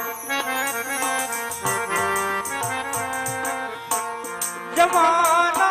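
Live Indian folk music: an instrumental break with a sustained reedy melody over steady, rhythmic percussion. A singer's voice comes back in near the end.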